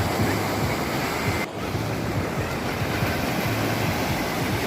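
Rushing sea water with wind buffeting the microphone: a steady, loud noise with a low hum underneath, briefly cut off about one and a half seconds in.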